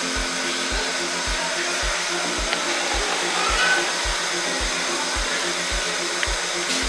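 Background music with a steady kick-drum beat, about two beats a second, and held bass notes, over a steady hiss.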